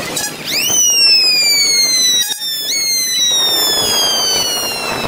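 A siren wailing: a high whine that shoots up quickly, then sinks slowly, is pushed back up about halfway through, and sinks again.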